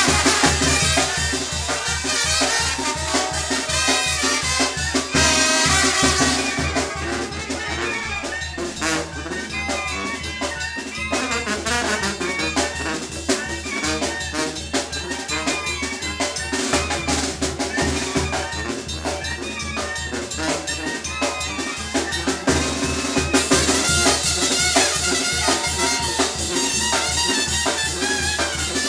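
Latin dance music with trumpets and other brass over a drum kit and percussion, playing a steady beat.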